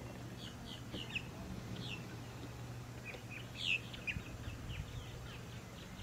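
Small birds chirping: many short, quick falling notes, several a second, with one louder call a little after three and a half seconds, over a faint steady low hum.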